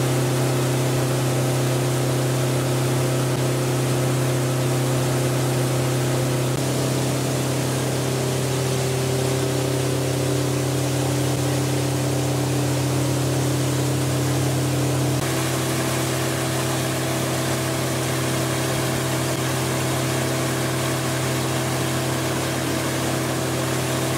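Powerboat engine running steadily at cruising speed, with a constant rush of wind and water over it. Its note steps slightly lower about six seconds in and shifts back up at about fifteen seconds.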